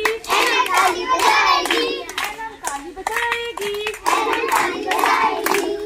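Schoolchildren singing a Hindi nursery rhyme together in unison while clapping their hands.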